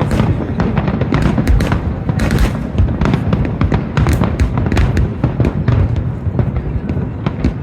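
Fireworks display in full swing: many overlapping shell bursts and sharp cracks, several a second, over a continuous low boom.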